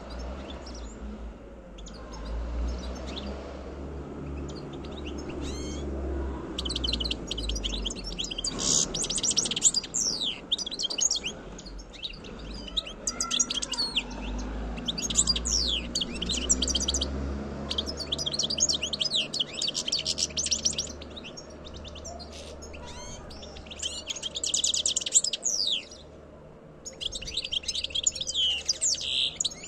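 European goldfinch singing: rapid, high twittering and trills in phrases a few seconds long, broken by short pauses, starting several seconds in.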